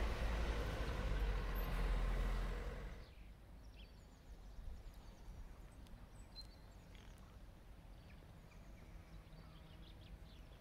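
A vehicle's rumble, loud for about the first three seconds, drops away suddenly, leaving quiet outdoor ambience with faint short high chirps.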